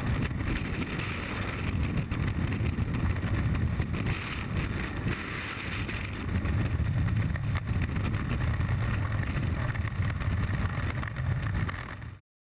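Freefall wind rushing over a helmet-mounted camera's microphone: a loud, steady rumble and hiss that rises and falls a little. It cuts off suddenly near the end.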